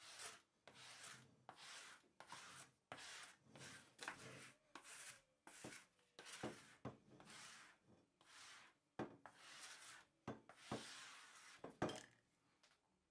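A sponge scrubbing flour off a kitchen worktop in quick back-and-forth strokes: a scratchy rubbing about twice a second, with a few sharp ticks among them, the loudest near the end.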